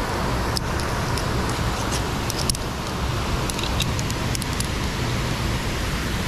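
Wind buffeting the microphone, a steady rumble and hiss, with light metallic clicks from climbing carabiners knocking against a steel via ferrata cable several times, in small clusters.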